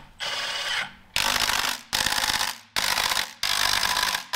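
Cordless impact wrench running in clutch pressure-plate bolts on an engine's flywheel, in about six short bursts of under a second each, the first one quieter.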